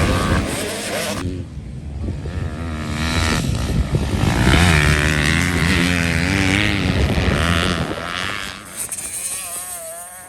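Motocross bikes racing on the track, their engines revving up and down through the gears as they pass. Near the end a fainter, higher engine note wavers from farther away.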